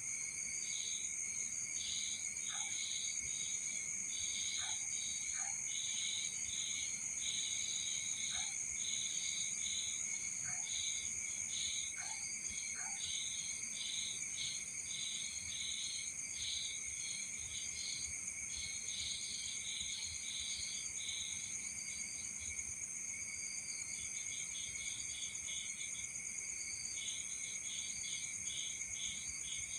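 Night insects: crickets chirping in quick repeated trains over a steady, high-pitched insect drone, with a short lull in the chirping about two-thirds of the way through.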